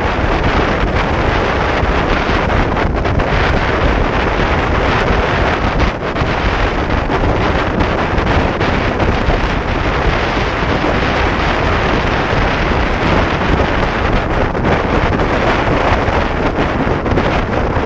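Loud, steady wind noise rushing over the microphone of a camera on a motorcycle at highway speed, with the bike's engine and road noise underneath.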